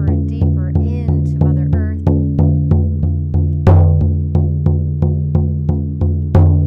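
Hand-held frame drum struck with a beater in a steady, even beat of about three strokes a second, each stroke booming low and ringing on into the next: the repetitive drumbeat used for shamanic journeying.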